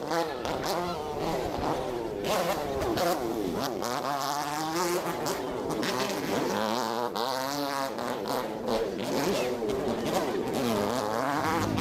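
Several motocross bike engines running and being revved at the starting line, their pitch rising and falling again and again.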